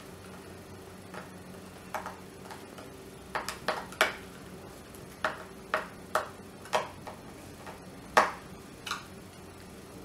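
A hand screwdriver clicks against a screw and the plastic handle of a dry iron as the handle screw is driven in. There are a dozen or so sharp clicks at irregular intervals, the loudest a little after eight seconds in.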